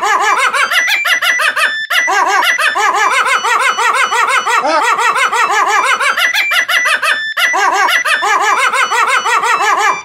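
A Siemens mobile phone ringtone melody played with pitch-shifted samples of a small dog's bark: a fast run of short barked notes, broken by two brief pauses, about two seconds in and again past seven seconds.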